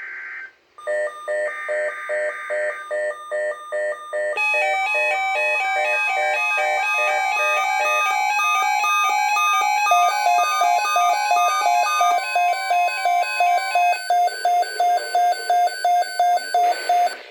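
Weather radio receiver's alert alarm: rapid electronic beeping in shifting pitch patterns that settles into a steady repeat of about three beeps a second. Near the start it is joined briefly by a burst of the digital SAME header tones that trigger the alert.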